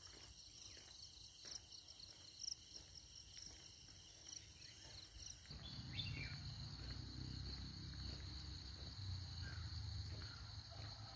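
Faint, steady high-pitched chorus of insects such as crickets, with a short bird call about halfway through. A low rumble comes in at the same point and carries on to the end.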